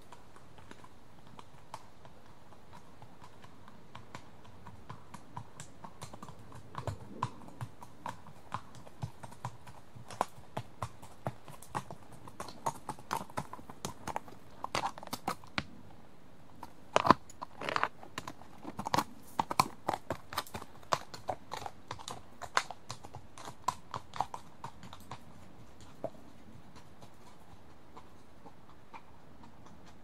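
A single horse walking, its hooves striking the ground in a steady walking rhythm. The hoofbeats grow louder as the horse approaches, are loudest around the middle, then fade away near the end.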